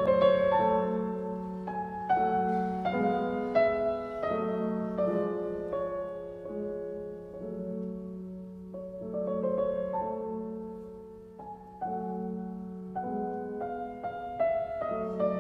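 Background music: slow piano playing, with notes struck one after another and left to ring.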